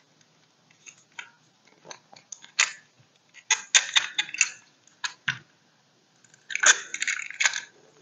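Plastic and metal parts of a wall switch clicking and clattering as they are handled and fitted back together, with two busier runs of clicks around the middle and near the end.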